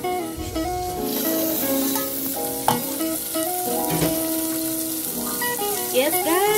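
Chopped tomatoes sizzling in an aluminium pot and being stirred with a wooden spoon, the sizzle brightening about a second in, with a couple of sharp knocks. Background music with a melody plays over it.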